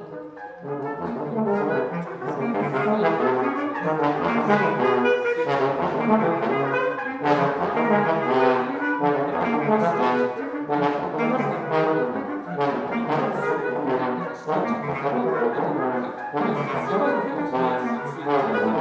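Trumpet, trombone and bass clarinet playing contemporary chamber music together: a busy texture of many short, overlapping notes with sharp attacks.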